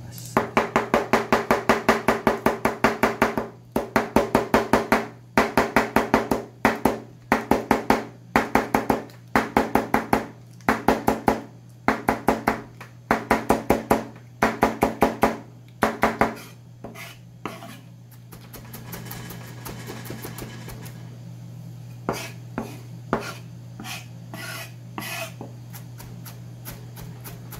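Chef's knife rapidly chopping green onion on a plastic cutting board, in fast runs of strokes broken by short pauses. After about sixteen seconds the chopping thins out to a few scattered knocks.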